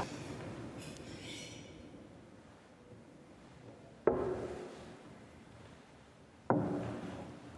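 Two sharp knocks about two and a half seconds apart, each with a short ringing tail that fades over about a second.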